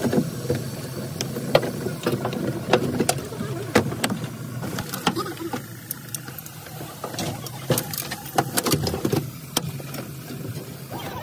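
A vehicle engine running with a steady low hum, under many sharp, irregular knocks and clicks.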